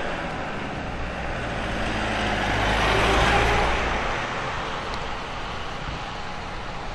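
A motor vehicle driving past on wet asphalt: tyre hiss and a low engine hum swell to a peak about three seconds in, then fade away.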